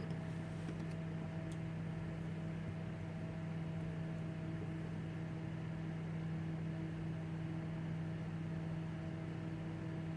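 Steady low mechanical hum with a constant pitch and no change in level, with a couple of faint clicks near the start.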